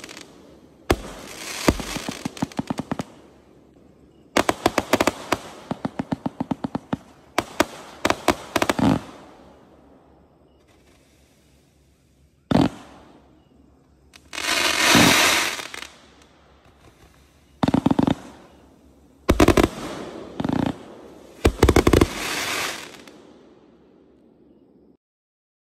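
A Green Peacock 1.2-inch, 168-shot fireworks cake firing in volleys: rapid strings of sharp launch reports and bursts, with stretches of crackling stars between them, and short gaps between volleys. A single loud shot sounds about twelve seconds in, and the last volley comes a little after twenty seconds.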